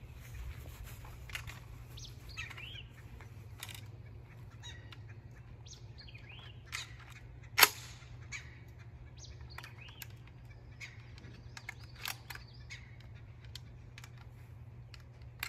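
Action of a Savage-made Springfield 745B long-recoil semi-automatic shotgun being worked by hand to test whether it cycles: one sharp metallic clack about halfway through, with a few lighter clicks before and after. Birds chirp faintly in the background.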